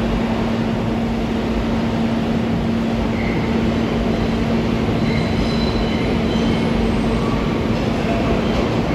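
R62A subway shuttle train approaching through the tunnel: a loud, steady rumble of wheels on rail with a constant hum under it, and faint high wheel squeals in the second half.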